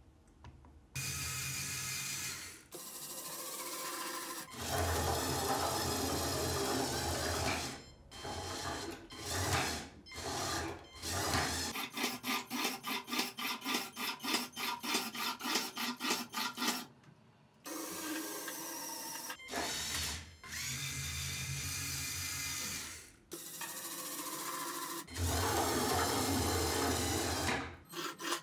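LEGO Technic electric motors whirring through plastic gearing in several runs of a few seconds each, stopping and starting between them. In the middle there is a stretch of rapid, even clicking, about four clicks a second.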